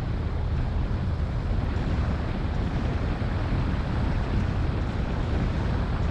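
Wind rushing over a car-mounted camera's microphone, with the low rumble of a car driving slowly on a gravel road. The noise stays steady throughout.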